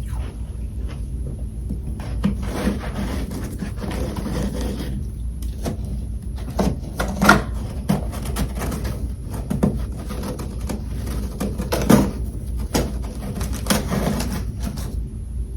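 Freezer frost being bitten and chewed close to the microphone: irregular soft crunches and crackles, with sharper bites about seven and twelve seconds in, over a steady low hum.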